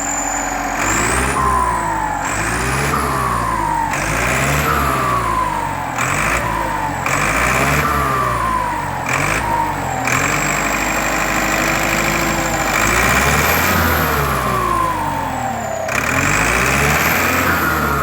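Turbocharged diesel truck engine revved in repeated short blips, with a high turbo whistle that rises with each rev and falls away as it drops back, and bursts of hiss. A longer held rev comes near the middle and another near the end.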